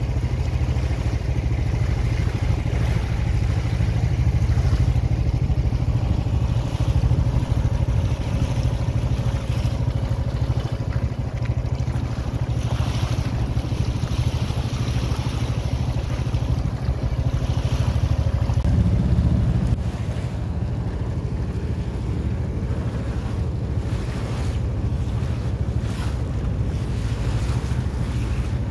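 Tour boat's engine running steadily, heard from aboard, with wind buffeting the microphone; the engine gets a little quieter about two-thirds of the way through.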